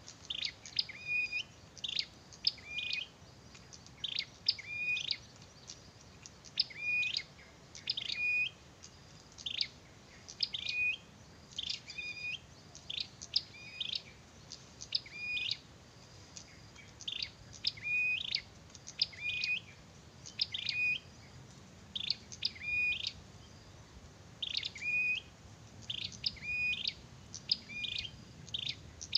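Prinia (perenjak) calling actively: short, sharp, high chirps repeated about once a second, some in quick pairs and runs.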